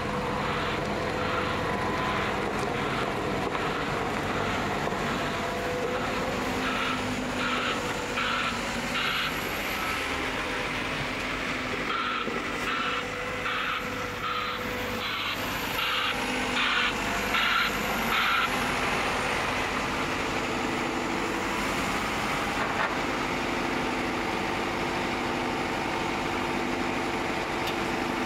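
Diesel engines of heavy earthmoving machines, a Liebherr 922 rail wheeled excavator and a Caterpillar 924H wheel loader, running steadily. A reversing alarm beeps about one and a half times a second, pauses about ten seconds in, resumes, and stops a little past halfway.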